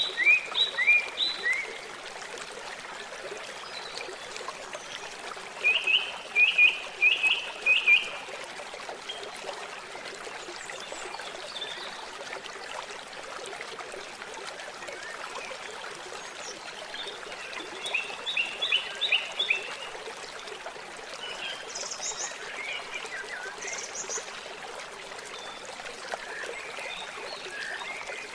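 Steady trickle of running water, with bird calls over it: runs of short, quickly repeated chirps lasting about two seconds each, heard at the start, about six seconds in, around two-thirds of the way through and again at the end.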